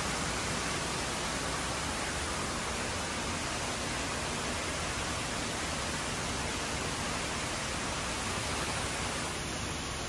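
Steady, unbroken rush of falling water, with no distinct calls or impacts.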